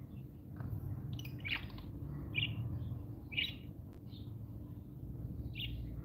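Lovebirds giving short high chirps, about five scattered calls, over a steady low background rumble.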